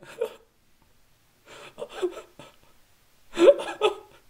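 A person's voice in three short bursts of gasping and whimpering, like someone upset and sobbing.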